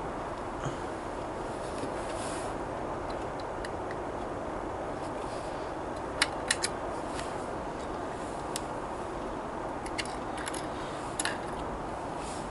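Small sharp plastic clicks as fingers prise the removable moulded coal load out of a model locomotive's tender: a quick run of three clicks about halfway through, then a few more single clicks near the end, over a steady background hiss.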